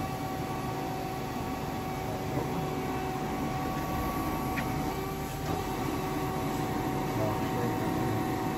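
Powered-up Okuma V80R CNC vertical lathe humming steadily, a constant machine tone over an even noise, with no cutting or impacts.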